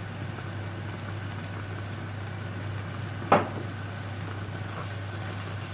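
A pan of stuffing cooking on the stove, a steady soft hiss over a constant low hum, with one short sharp sound about three seconds in.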